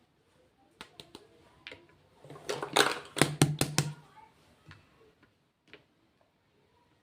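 Hands handling makeup packaging: scattered sharp clicks and taps, with a quick run of louder clicks in the middle.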